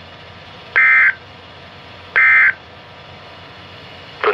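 Emergency Alert System data bursts from NOAA Weather Radio: two short, identical warbling digital bursts about a second and a half apart over steady radio hiss. They are the short end-of-message ('NNNN') bursts that close the flash flood warning.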